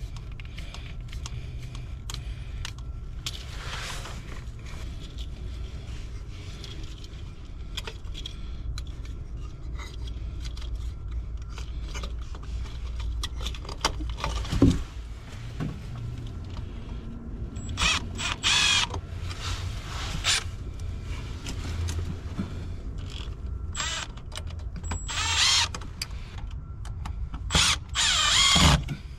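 Clicks, knocks and clatter of tools being handled during electrical work, over a steady low rumble, with several short bursts of a cordless power tool in the second half.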